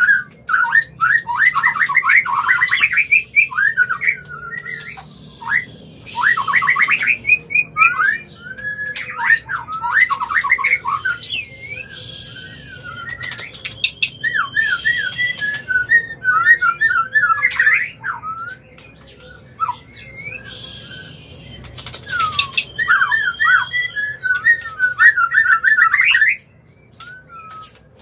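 White-rumped shama singing in breeding condition: rapid runs of clear whistled and trilled phrases with short pauses between them, mixed with harsh hissing notes.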